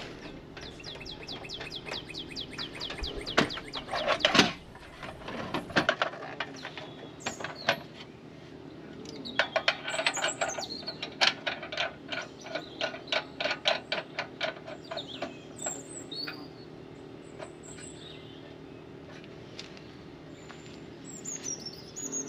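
Two runs of quick, sharp ticking, about four to five strokes a second, with birds chirping now and then.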